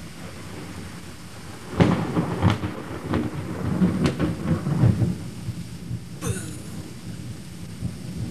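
Thunder over steady rain: about two seconds in, a thunderclap breaks out with a sharp crackling and a deep rumble that lasts about three seconds, then trails off into a lower rumble.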